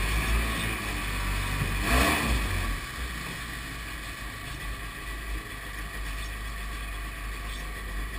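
Kawasaki 750 two-stroke engine driving a jet-ski jet unit, running under way, with water rushing past the hull. The engine swells briefly about two seconds in, then runs on steadily.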